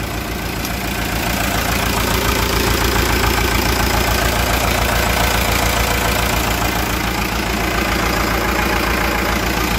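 Komatsu WA100-3E wheel loader's four-cylinder diesel engine idling steadily, heard up close through the open side engine panel.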